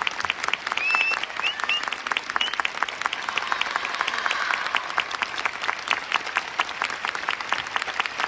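Audience clapping steadily, with a few short, high rising calls over it in the first couple of seconds.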